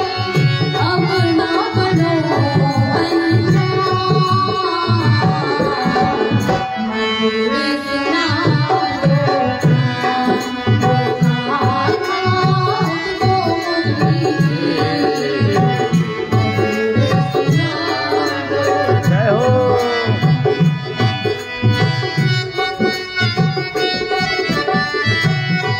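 Indian devotional music: tabla playing a steady rhythm under a wavering melody line.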